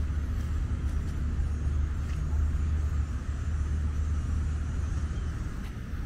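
Outdoor ambience: a steady low rumble under a faint hiss, with a few faint ticks.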